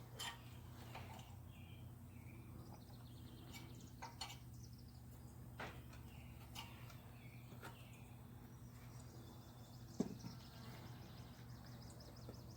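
Quiet background with faint bird chirps over a low steady hum, with scattered faint clicks and one sharper knock about ten seconds in.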